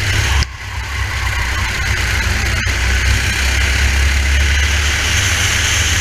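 Race kart engine running at speed, heard through an onboard helmet camera, with a steady rushing noise over it. The loudness drops suddenly about half a second in and recovers within a second.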